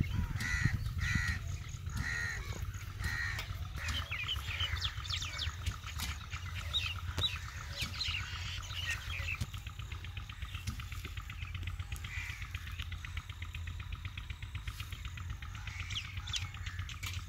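Outdoor birds calling: four harsh caws in the first few seconds, then quick rising chirps and a fast rhythmic chatter, over a steady low rumble.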